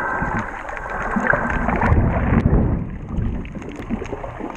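Underwater sound from a camera moving through the water over a reef: a steady rushing of water with a low rumble that swells around the middle, and scattered faint clicks.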